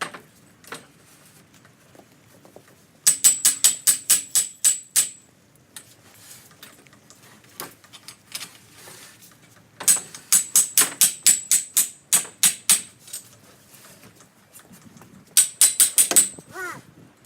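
A hammer striking metal in three quick runs of about five blows a second, each blow ringing sharply.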